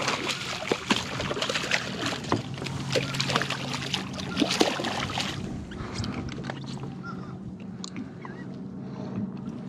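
A small hooked fish thrashing and splashing at the water's surface beside the boat as it is pulled in on the line; the splashing dies down about five seconds in once the fish is lifted out.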